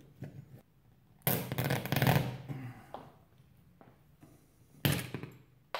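Plastic straps of a Toggler toggle-bolt anchor rasping for about a second as the collar is zipped down them against the drywall, then a short sharp snap near the end as the straps are broken off.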